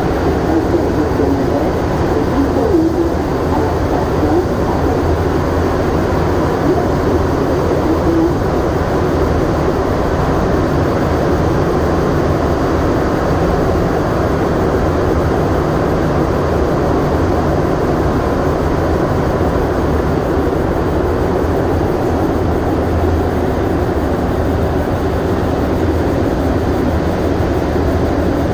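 Rubber-tyred MR-73 Montreal Metro train running at steady speed through a tunnel, heard from inside the car: a loud, even running noise, mostly low in pitch, with no stops or sudden changes.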